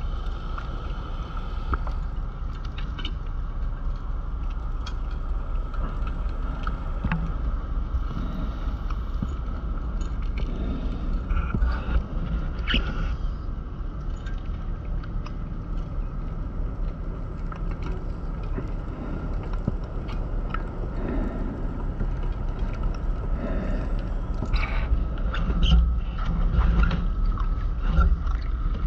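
Steady low underwater rumble picked up through a diving camera's housing, with a faint steady hum and scattered clicks and knocks.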